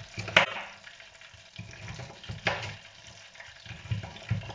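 A knife cuts through raw sweet potato onto a plastic cutting board, with sharp cuts a couple of seconds apart and softer thuds near the end. Underneath is the steady sizzle of prawns deep-frying in oil.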